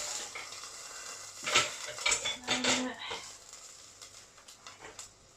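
A metal spatula and utensils clattering and scraping against a frying pan as burger patties are put in and moved about: a string of irregular knocks, the loudest about a second and a half in.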